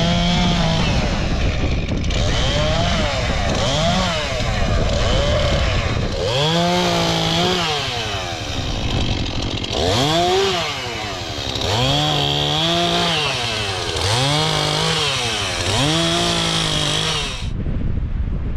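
Chainsaw engine repeatedly revving up, holding, and easing back off, about once every two seconds, as in cutting wood.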